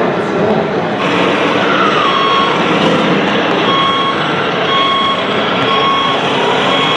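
A scale RC truck's reversing beeper, beeping about once a second from about halfway in, over steady truck engine sound.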